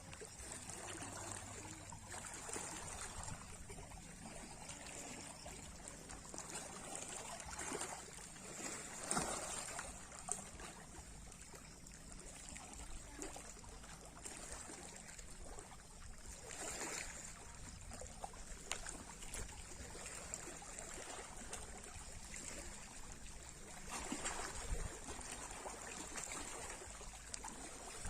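Sea waves lapping and washing, with a louder surge about every seven or eight seconds.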